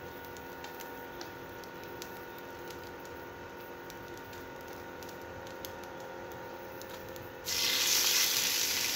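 A low steady hum with a few light clicks, then near the end a sudden loud sizzle as thin marinated mutton pieces go into hot ghee on a tawa and start frying.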